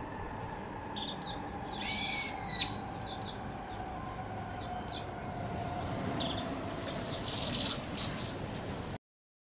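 Japanese white-eye calling in intense, excited bursts: a loud call about two seconds in, fainter calls scattered through, and a loud cluster near the end, where the sound cuts off abruptly. The uploader takes the calling for a bird that has just lost a fight with a paired male; fainter calls in this part come from the pair further off.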